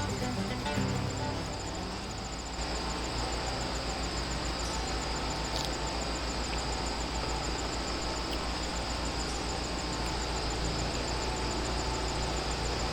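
Insects, crickets or cicadas, chirping in a fast, even pulse over a low steady hum and an even outdoor hiss.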